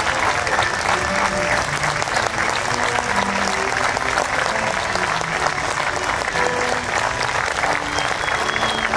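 Large audience applauding, dense and steady clapping.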